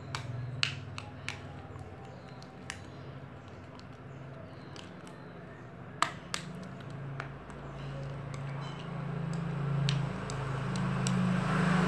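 Clumped glue-and-soap slime stirred in a glass bowl: soft squishing with a few sharp clicks of the stirrer against the glass, the loudest about six seconds in. A steady low hum runs underneath and grows louder in the second half.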